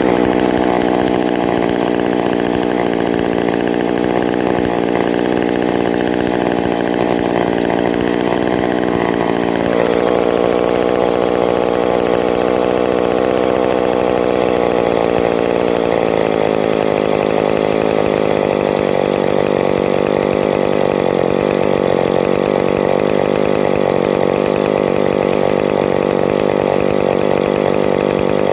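Yellow McCulloch chainsaw's two-stroke engine running on its own at a fast idle, racing too fast, as its idle is turned down. About ten seconds in the note drops slightly and it then runs steadily at the lower speed.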